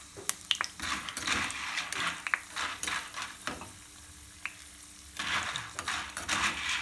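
Dry chana sizzling as it deep-fries in hot oil inside a wire-mesh strainer, while a metal spoon stirs it, clinking sharply against the mesh a few times in the first couple of seconds. The sizzle drops for a moment around four seconds in, then picks up again.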